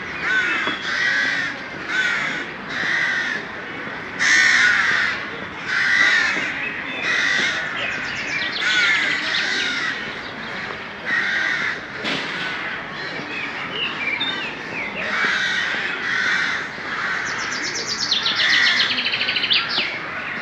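Crows cawing: a long run of harsh calls repeating roughly once a second, with several overlapping in a denser cluster near the end.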